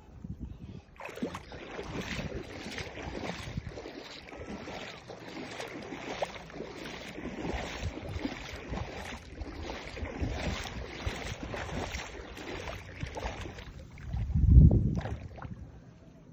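Shallow seawater lapping and splashing around wading feet. A brief low rumble of wind on the microphone comes about two seconds before the end.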